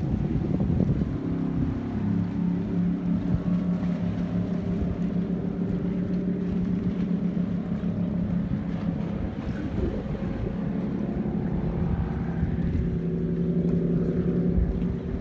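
Boat engine running with a steady droning hum that wavers in pitch about two-thirds of the way through, with wind rumbling on the microphone.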